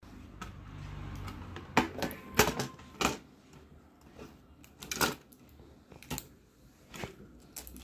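Irregular sharp clicks and taps of a plastic tablet casing and its circuit board being handled and set down on a table, the loudest cluster about two to three seconds in.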